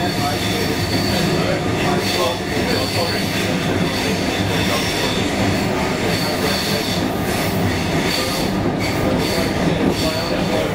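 Comeng electric suburban train running, heard from inside the carriage: a steady loud rumble of wheels and running gear, with a thin high-pitched wheel squeal that comes and goes.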